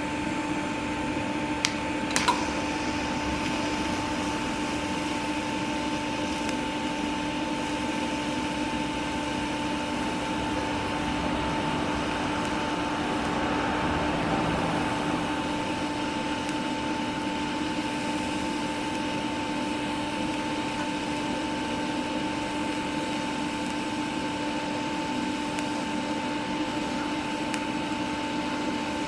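TIG welding arc on steel, run from a stick welder with a 2% lanthanated tungsten and argon shielding: a steady hiss with a constant hum, and two sharp clicks about two seconds in.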